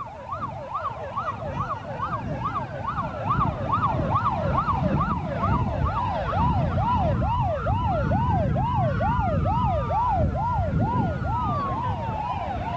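Several emergency-vehicle sirens sounding together, fast rising-and-falling yelps about two or three a second, with a slower wail sweeping down in pitch near the end, over a low traffic rumble.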